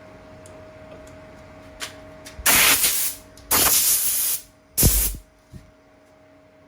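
Compressed-air blow gun hissing in three blasts, the middle one the longest and the last one short, blowing chips and cutting fluid out of a freshly tapped hole in aluminium plate.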